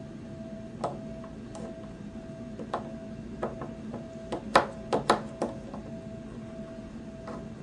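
A series of light, irregular clicks as a metal tool taps against the terminals of a capacitor being shorted, the loudest pair about halfway through, over a faint steady hum. No real discharge snap is heard: the wire had grounded to the capacitor, so little charge was stored.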